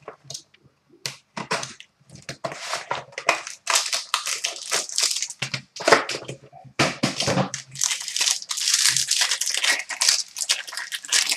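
Plastic shrink-wrap and packaging on a trading-card box crinkling and tearing as it is cut open and unwrapped: a dense run of irregular crackles, busiest in the second half.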